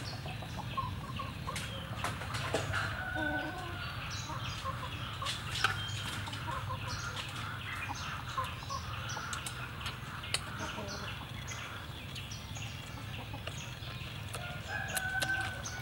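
Chickens clucking in the background, with short scattered calls and high chirps over a steady low hum.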